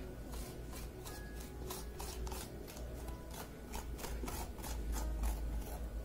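A metal spoon scraping seeds and stringy pulp out of the inside of a halved, microwave-softened pumpkin, in repeated short strokes about two or three a second.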